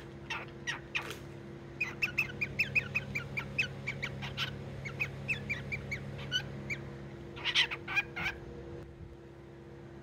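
Cockatiel chattering: a run of short, quick chirps, several a second, then a few louder, harsher calls about seven and a half seconds in.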